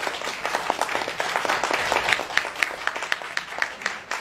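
Audience applauding. The dense clapping thins after about two seconds to a few hands clapping about four times a second, fading near the end.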